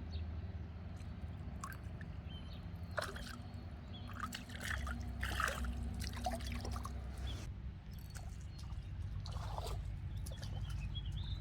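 Pond water trickling and sloshing in a few short irregular splashes, over a steady low rumble.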